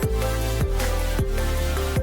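Background music: electronic track with heavy bass and a steady beat about twice a second under a held synth melody.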